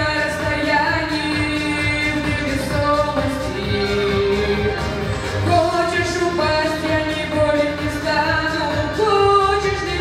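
A teenage boy singing a Russian pop song live into a handheld microphone, holding long notes over backing music with a steady beat.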